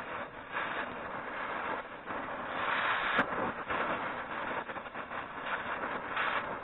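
Oxy-fuel cutting torch cutting through steel on a plough part: a steady, rough hiss from the gas jet that swells and fades as the cut goes, with a single sharp click about three seconds in.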